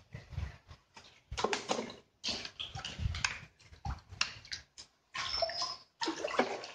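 Gloved hands working a fishing hook and line close to the microphone: irregular rustling and knocks, with some water splashing.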